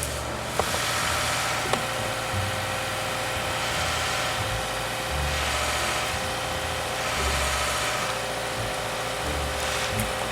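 Car engine running at idle under a steady hiss, with two faint clicks in the first two seconds.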